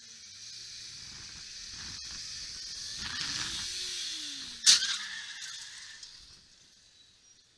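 Faint city traffic noise picked up by a car dashcam, with an engine note rising and then falling in pitch and a single sharp knock about four and a half seconds in. The sound fades out about six seconds in.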